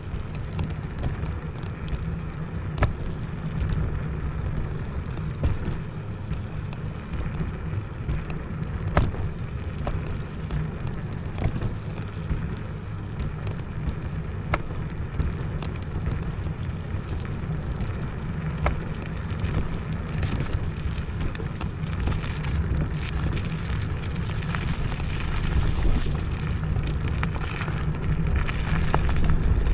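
IO Hawk Legacy electric scooter ridden off-road: steady low rumble of wind and tyres on rough wet ground, with scattered knocks and rattles from bumps, louder near the end.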